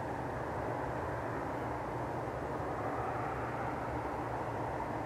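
Steady outdoor background rush, low and even, with no distinct events.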